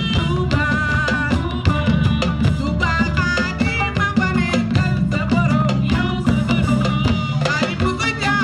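A woman sings lead over a live band in full swing, her voice rising and falling in ornamented runs over a steady, busy drum and percussion beat.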